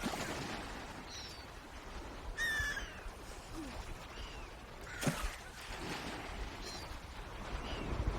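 Swans calling: short, repeated calls about once a second, the loudest and fullest one about two and a half seconds in, over a low outdoor rumble.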